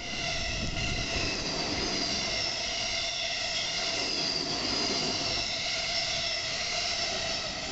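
Electric train passing directly overhead on a steel girder railway bridge: a loud, continuous rumble and rattle with several steady high-pitched whining tones laid over it.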